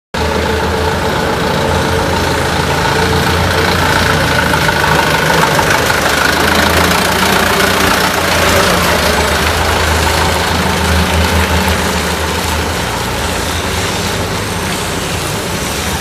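Truck engine idling steadily, a continuous low hum under a dense hiss.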